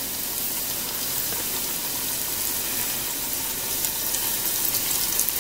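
Flour-dredged chicken pieces frying in hot lard in a stainless steel pot: a steady sizzle with fine crackling as more pieces go into the fat.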